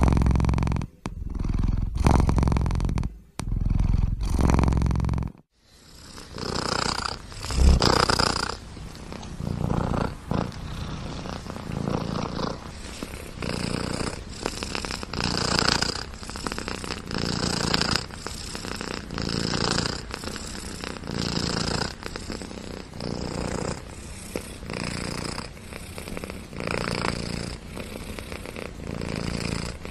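Domestic cat purring in rhythmic waves that rise and fall with each breath. About five seconds in it cuts abruptly to a second, quieter purr that swells about once every second and a half.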